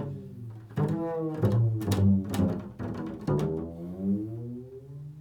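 Improvised solo music: a run of low, ringing notes with sharp attacks on a stringed instrument, about half a dozen notes, dying away near the end.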